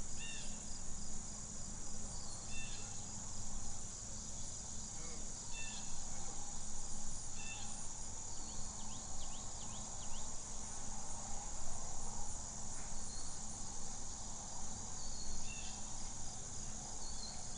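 A steady high-pitched chorus of chirping crickets, with a few faint short calls now and then.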